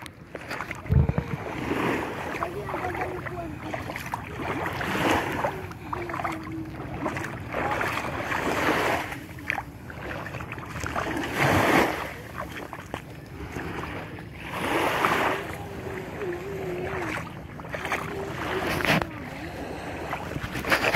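Water splashing and wind noise that swell in surges every few seconds, with a faint wavering hum underneath.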